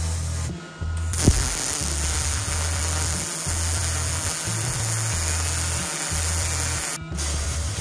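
MIG welder arc running beads: a steady crackling hiss from a Miller Multimatic 215 on 75/25 argon-CO2 gas. It breaks off briefly near the start, restarts with a sharp pop, and pauses briefly again near the end. Background music with a deep bass line plays underneath.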